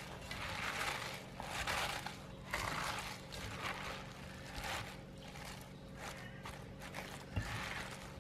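Salted napa cabbage leaves rustling and crunching as hands toss and squeeze them in a metal pot, in strokes about once a second, with a single knock about seven seconds in.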